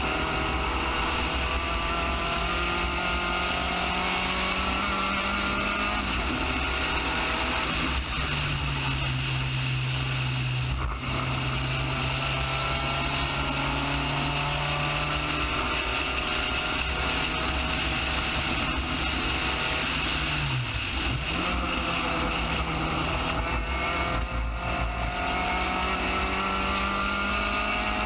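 Spec Racer Ford GEN3 race car's engine at speed, heard onboard with constant wind rush. The engine note climbs slowly, with changes of pitch about six and eight seconds in, again around fifteen seconds, and a brief dip about twenty-one seconds in.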